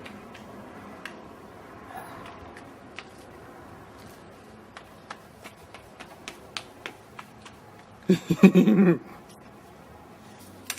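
Scattered light clicks and taps, then about eight seconds in a loud, pitched, wavering cry lasting about a second.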